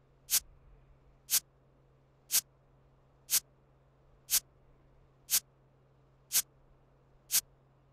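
Countdown timer sound effect ticking once a second, a short sharp tick each time, eight ticks in all.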